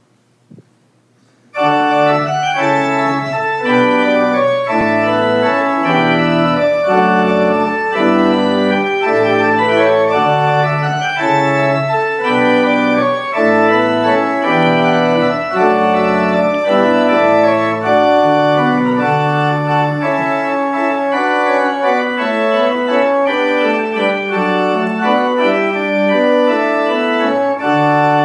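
Organ postlude closing a church service: sustained organ chords that change every second or so over low bass notes, starting about a second and a half in after a brief near silence. The bass notes drop out about two-thirds of the way through while the chords go on.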